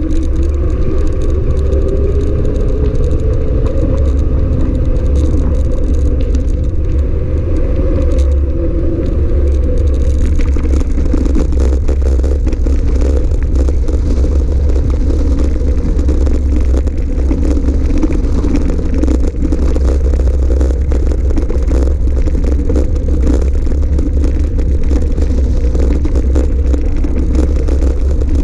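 Wind buffeting the action camera's microphone while an electric mountain bike rolls along, a loud steady low rumble. A wavering whine runs through the first ten seconds or so; after that the tyres crunch over loose gravel and the bike rattles.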